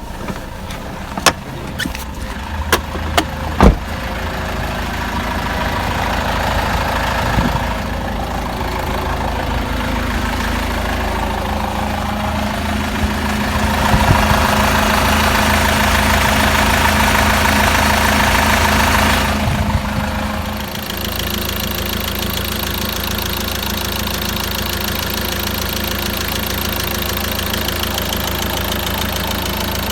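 Peugeot Boxer 2.2 turbo-diesel engine running steadily from cold, knocking. Several sharp clicks sound in the first few seconds, and a hissing layer drops away about two-thirds of the way through.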